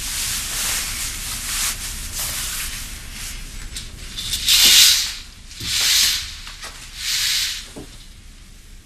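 Fabric rustling as bedding is handled, then three loud swishes about a second apart as a cloth hospital privacy curtain is pulled along its rail.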